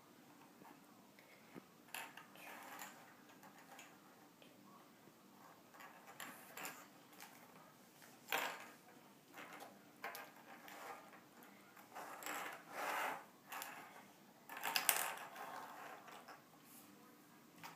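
Small shiny ball ornaments being picked up, rattled together and set down on a tabletop: faint scattered clicks and clinks every second or two, loudest about eight seconds in and again about fifteen seconds in.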